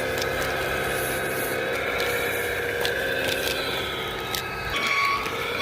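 Battery-powered toy construction vehicle running, its small motor and gears whirring steadily with scattered clicks. About five seconds in the whirr drops away and a beeping tone starts.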